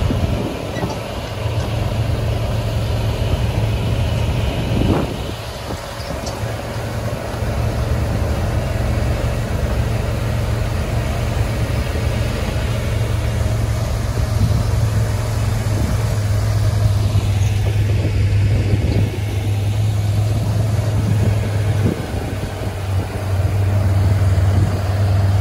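Engine of the cart touring the cornfield, running steadily with a low drone.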